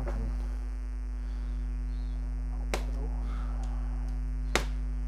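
Steady electrical hum from a faulty microphone, with two sharp clicks about two seconds apart as a blade works at a plastic packing strap on a cardboard box.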